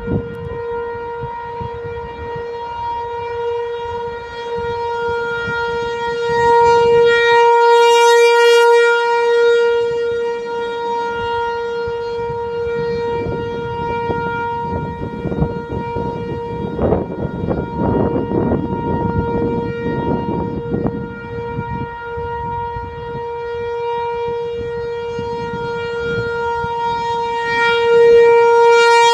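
ASC T-128 rotating electronic tornado siren sounding its steady alert tone, one unchanging pitch that swells louder and fades as the rotating horn sweeps past, loudest about a third of the way in and again at the end. A broad rush of noise runs under it through the middle.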